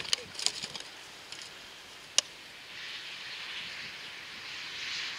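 A pony's hooves crackling a crinkly plastic sheet briefly at the start, a single sharp click about two seconds in, then a steady airy hiss from about three seconds in.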